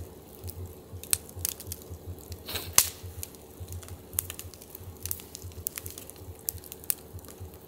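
Wood fire crackling in a metal fire pit: irregular sharp pops and snaps from the burning logs, with a louder snap a little under three seconds in.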